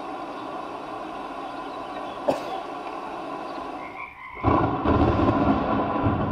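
Film sound design heard over the room's speakers: a steady hiss with one sharp click a little after two seconds, then a loud rush of wind setting in suddenly about four and a half seconds in and holding.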